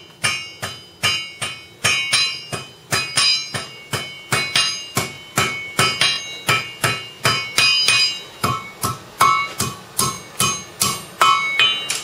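Blacksmith's hand hammer striking metal on an anvil in a steady rhythm of about three blows a second. Each blow rings out with a clear metallic note.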